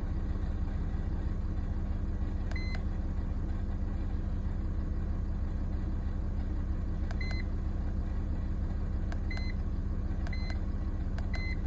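VW Crafter 2.5 TDI diesel engine idling steadily, with five short electronic beeps from a handheld iCarsoft scan tool as its buttons are pressed to page through the I/M readiness screens.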